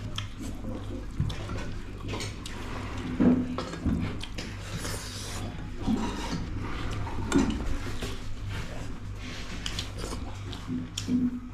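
Serving spoon and metal plates clinking in scattered knocks as more rice is served, mixed with the mouth sounds of eating, over a steady low hum.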